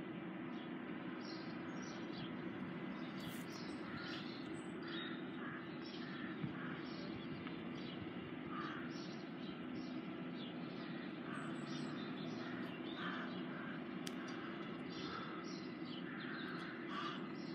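Birds calling in short, irregular calls, a few every second, over a steady low hum.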